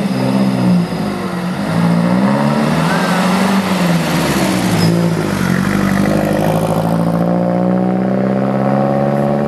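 Engine of a 1930s open-top touring car pulling away and passing close by. Its note rises and falls over the first few seconds, then settles into a steadier, slowly rising drone as the car accelerates off up the road.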